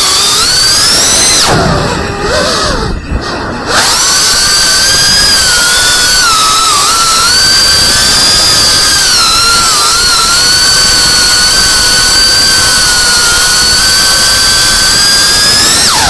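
FPV racing drone's brushless motors and propellers whining, the pitch rising and falling with throttle. About two seconds in, the throttle comes off and the whine drops in pitch and level, then snaps back up near four seconds and holds steady.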